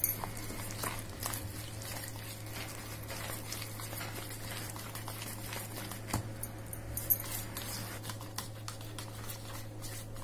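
Fingers working thick besan (gram-flour) batter around a plastic bowl: a run of soft wet squelches and small clicks, over a steady low hum.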